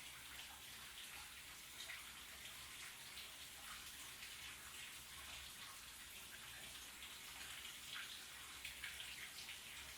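Shower running: a steady spray of water with irregular louder splatters as it hits, and a faint low hum underneath.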